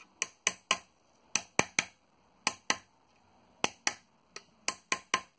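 Hammer striking a domed steel punch on annealed brass sheet over an anvil's pritchel hole: sharp metallic taps in quick groups of two or three, about fourteen in all. Each group drives the sheet a little further into a shallow dome for a boss-capped rivet.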